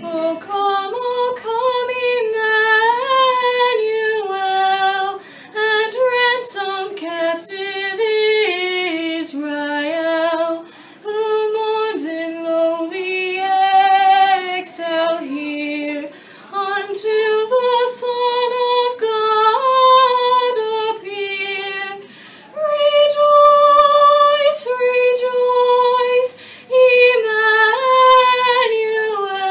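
A teenage girl singing solo without accompaniment, a slow melody with long held notes and short pauses for breath between phrases.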